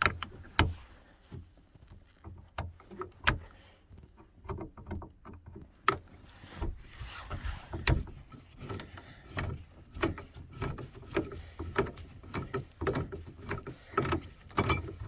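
Phillips screwdriver working out the second screw that holds a door lock in a 1990 Dodge Grand Caravan's door: irregular clicks and knocks of the tool and lock against the door's metal, with a short scrape about seven seconds in.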